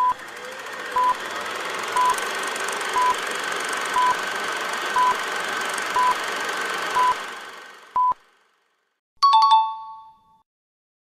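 Quiz countdown timer beeping once a second, nine short electronic beeps with the last one a little longer, over a hissing drone that swells in and fades after the last beep. About a second later a bright chime rings and dies away as time runs out.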